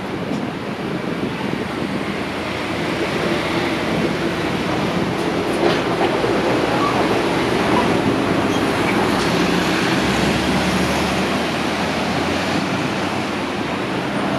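Diesel city bus running close by at a kerbside stop, over steady city street traffic noise; the rumble grows a little louder about three seconds in.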